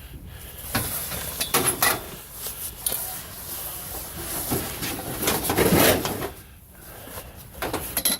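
Scrap items being handled and loaded into a car: a run of sharp knocks and clatter, a longer scraping shuffle a little after halfway, and another knock near the end.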